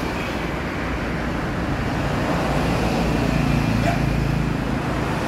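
Steady road-traffic rumble and hum, growing somewhat louder about two seconds in as a vehicle's engine comes closer.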